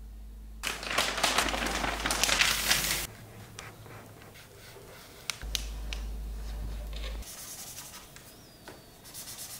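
Paper rustling for about two and a half seconds as a road map is handled, then quieter scratching and small clicks of a felt-tip marker drawing on the paper map.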